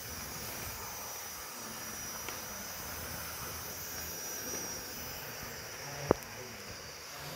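Model railway tank locomotive running along sectional track, its small electric motor giving a steady whirr, with one sharp click about six seconds in.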